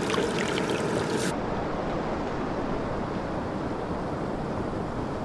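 Steady rushing of river rapids. About a second in, the high hiss drops away suddenly and a lower, even rush carries on.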